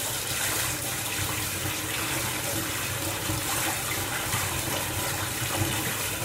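Bathtub tap running steadily, the water being brought to the right temperature for a dog's bath.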